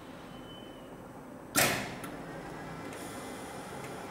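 Hightex 7273PLK computerized pattern sewing machine powering up. It gives a sudden short burst about a second and a half in as it cycles up and down through one full sewing revolution, then runs on with a steady hum and a faint high whine.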